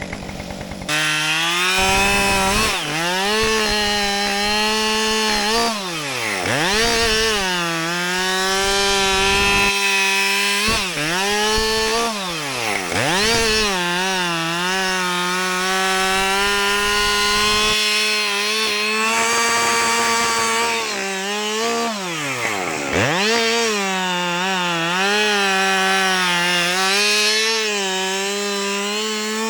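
Two-stroke gas chainsaw cutting into a tree at full throttle, starting about a second in. Its engine note drops and swings back up several times as the throttle is eased or the chain loads in the wood.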